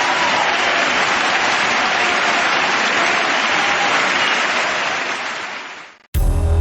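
Audience applause that fades out near the end, followed by a brief silence. Then music with heavy bass and drums starts abruptly.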